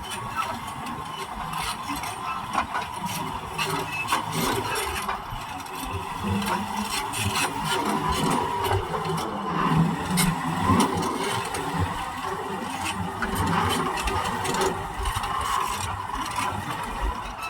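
Caterpillar D9N crawler bulldozer at work: its V8 diesel engine runs steadily while the steel tracks clank and rattle throughout.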